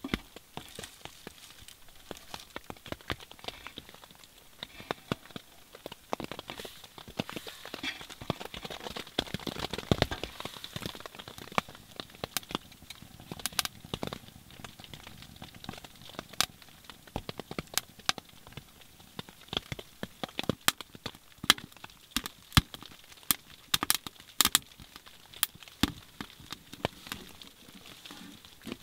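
Kindling and split firewood catching fire in a small titanium wood stove, crackling with irregular sharp pops that come thicker and louder in the second half.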